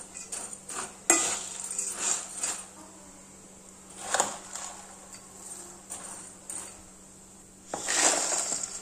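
Metal spoon scraping and clinking against a steel bowl as crisp fried boondi is tossed with chilli powder, in short bursts. Near the end, a longer rattle as the boondi is tipped from the bowl into a plastic container.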